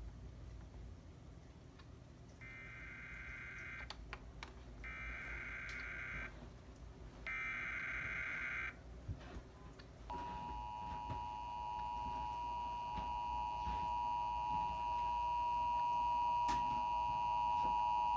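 Emergency Alert System SAME header: three short bursts of warbling digital data tones, about a second apart. About ten seconds in, the steady two-tone EAS attention signal starts and holds for about eight seconds, announcing an alert that is about to be read.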